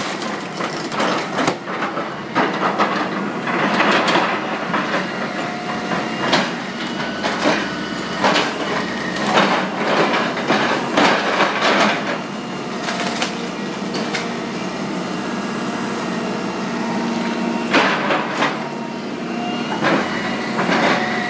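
Demolition of a wooden building: timber cracking and splintering and debris crashing in irregular bursts, heaviest about 4, 10 and 18 seconds in, over a steady low hum.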